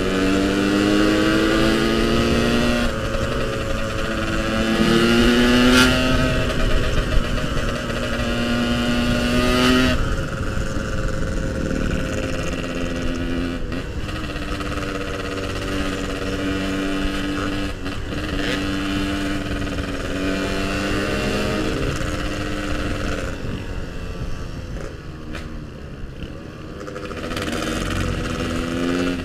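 Yamaha RX-King's two-stroke single-cylinder engine under way: its pitch climbs as it accelerates over the first few seconds, falls around ten seconds in, then runs steadily at cruise, eases off briefly near the end and picks up again.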